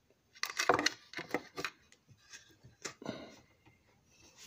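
Handling noise from a camera being moved and repositioned by hand: irregular rubbing, bumps and sharp clicks.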